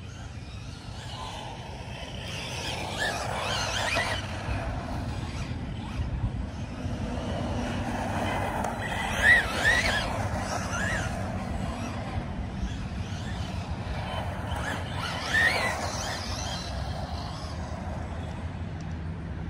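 Arrma Senton RC short course truck driving on asphalt. Its electric motor whines up and down with the throttle while the nearly treadless street tyres scrub and chirp as the truck slides. Short squeals stand out about halfway through and again about three quarters of the way in.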